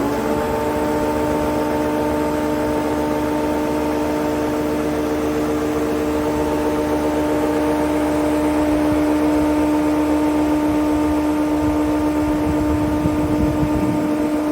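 Żefam 40 jointer-planer running at full speed, its 3 kW motor and four-knife cutterhead giving a steady, even whine.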